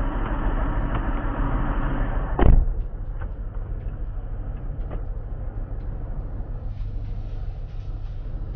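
Car running, with steady engine and road noise. About two and a half seconds in there is one loud thud, after which the running noise drops to a quieter low hum.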